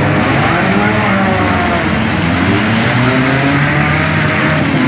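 Engines of several junk cars racing round a dirt track, revving, each rising and falling in pitch as they power around the oval.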